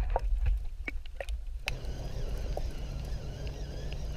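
Muffled low rumble with a few faint clicks, as heard from a camera underwater among a school of baitfish. About a second and a half in it cuts to open-air ambience by the water: a steady low background with a faint airy hiss and a few faint high chirps.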